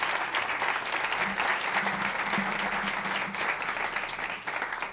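Audience applauding, a dense steady patter of many hands clapping that dies away at the very end.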